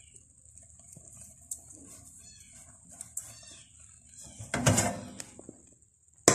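Metal frying pan being moved and set down: a clatter about two-thirds of the way through and a sharp knock near the end, over a steady high-pitched hiss.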